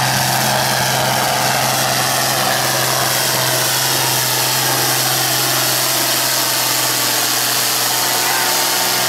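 Fiat 1880 tractor's diesel engine running flat out under heavy load as it drags the pulling sled down the track, a loud, steady drone that holds all the way to a full pull.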